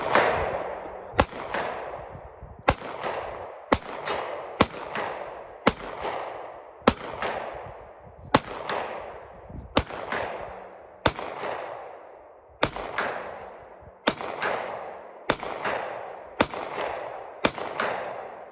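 Steady semi-automatic gunfire: about fifteen single shots, roughly one every second or so, each followed by a fading echo.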